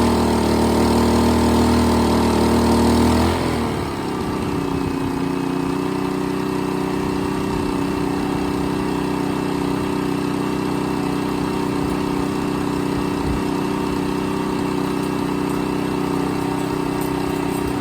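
ITC Power GG9i inverter generator's engine running steadily, then slowing about three seconds in and settling at a lower, steady speed, the way an inverter generator throttles back when its load lightens.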